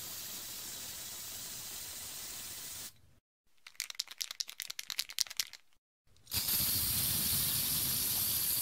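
Aerosol spray-paint can hissing as it sprays for about three seconds, then rattling quickly as it is shaken, its mixing ball knocking inside, then spraying again with a louder hiss.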